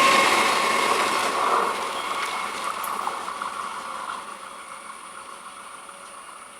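A passing train receding, its running noise and a steady whine fading away over about four seconds.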